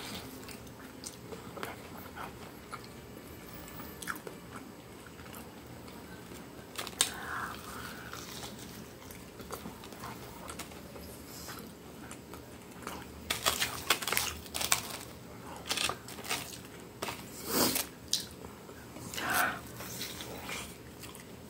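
A person biting and chewing a breaded, fried chicken coxinha, with soft crunches of the crust. The crunching gets louder and more frequent from about two-thirds of the way in.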